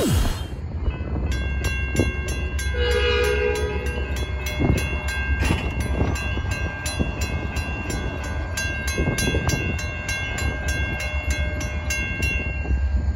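Railroad crossing warning bells ringing in a fast, even rhythm as the crossing activates: a Western Cullen Hayes mechanical bell and a GS Type 3 electronic bell. A train horn sounds briefly about three seconds in, over a low rumble.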